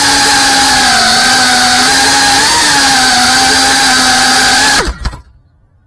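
FPV quadcopter's brushless motors and propellers whining at a steady, slightly wavering pitch. Near the end the whine cuts off suddenly with a couple of knocks as the quad touches down and its motors stop.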